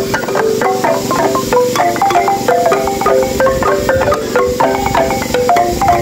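Background marimba music: a quick, repeating melody of struck wooden bars.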